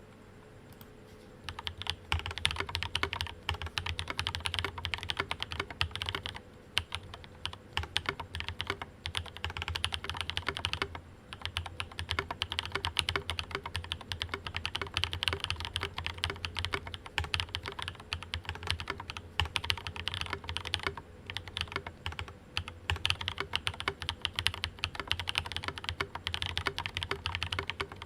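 Typing on a Rama Works Kara Soya mechanical keyboard with Cobalt POM linear switches, lubed and filmed, under ABS Cherry-profile keycaps: a fast, steady run of key clacks. It starts about a second and a half in and has a brief pause near the middle.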